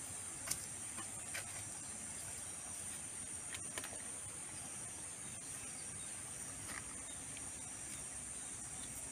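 Steady high-pitched drone of insects, with a few faint short sounds on top of it, the clearest about half a second in and near four seconds in.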